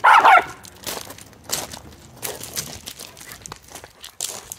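A dog barks once, sharply, at the start, followed by scattered faint clicks and crinkling rustles.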